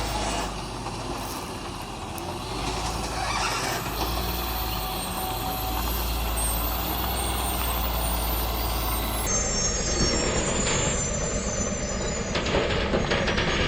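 Heavy truck running on a rough road: a steady engine rumble with road and body noise. The sound changes abruptly about nine seconds in, as if to another truck.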